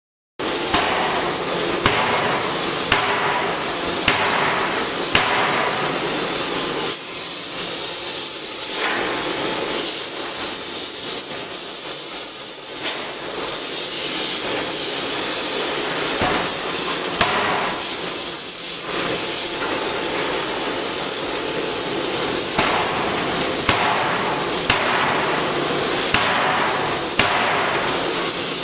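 A 6-ton hydraulic die forging hammer strikes a red-hot crankshaft billet in its dies, with heavy blows about a second apart in runs separated by pauses. A loud continuous hiss runs underneath.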